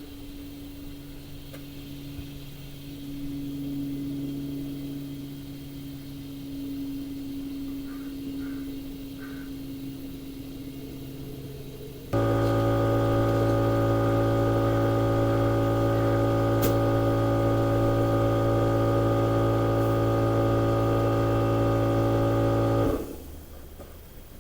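A low steady hum, then about halfway through a motor starts abruptly and runs with a loud, even hum, stopping about a second before the end. This is typical of an air compressor running while a truck tire is inflated.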